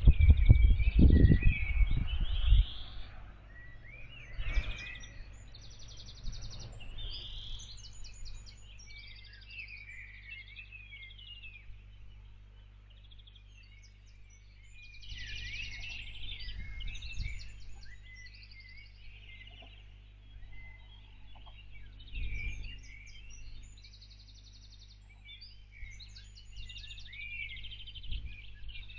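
Several small birds singing, with many short chirps and fast high trills, over a steady low hum. Bursts of low rumbling come in the first few seconds, about halfway through and again about three quarters of the way through.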